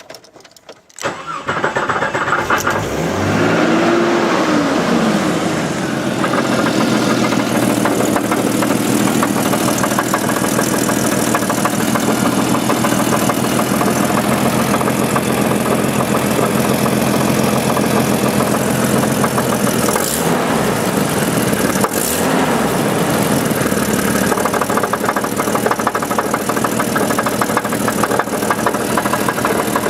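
1988 Jeep Cherokee's Renix 4.0-litre inline-six starting up from its jerry-rigged switch: it cranks briefly, catches about two seconds in, revs up and falls back, then idles steadily with two brief small revs around twenty seconds in. Under the idle runs a steady knock that the owner guesses is piston slap rather than rod knock.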